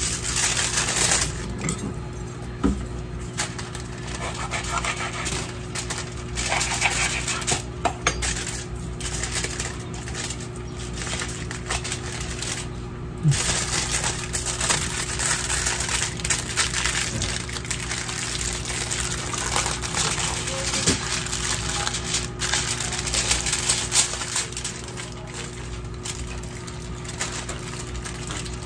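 Aluminium foil crinkling and rustling under handling as a stuffed fish is laid on it and the foil is folded around it, with scattered small taps and clinks and a steady low hum underneath.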